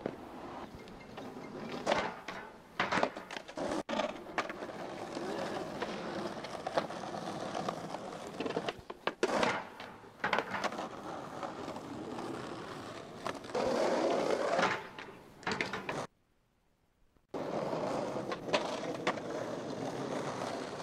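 Skateboard wheels rolling on rough pavement, broken by several sharp clacks of the board hitting the ground. The sound cuts out completely for about a second roughly three-quarters of the way through.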